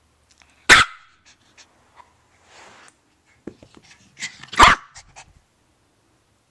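Young Maltese dog giving two sharp, loud barks close to the microphone, about four seconds apart, during a burst of playful running, with small clicks and scuffs in between.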